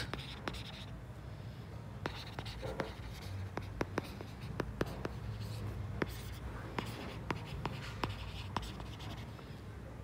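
Stylus writing on a tablet's glass screen: irregular light ticks and taps as the pen tip strikes and lifts while handwriting words, over a faint low hum.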